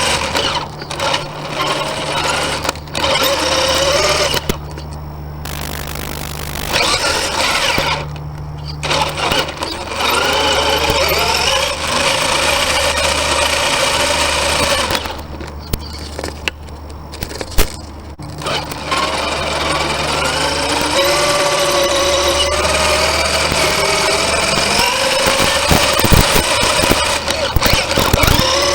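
Electric motor and gearbox of a 1/10 scale RC rock crawler whining, the pitch rising and falling with the throttle over a steady low hum, with a few brief pauses.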